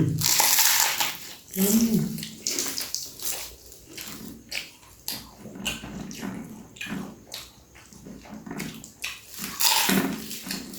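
Close-up eating sounds: chewing and wet mouth clicks from a mouthful of beef krecek and rice, with a few short voiced sounds.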